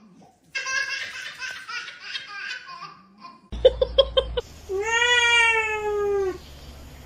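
A person laughing, then a quick run of short calls and a cat's single long, drawn-out meow that rises briefly and then slowly falls.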